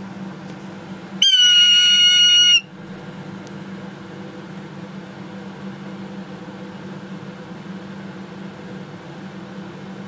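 Young red-tailed hawk giving a single loud, high, steady-pitched call about a second in, lasting about a second and a half, over a steady low hum.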